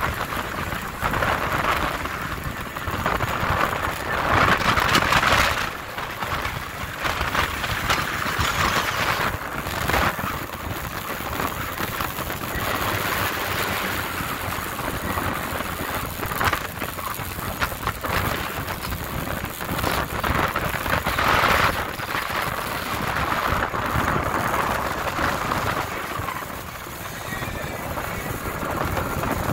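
Wind buffeting the microphone and water rushing and splashing against the hull of a Boston Whaler underway across choppy water, swelling in louder gusts now and then.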